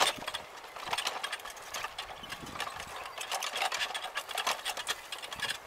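Irregular crunching and crackling of dry grass and dirt under walking feet and the wheels of a small power wheelchair moving along a trail.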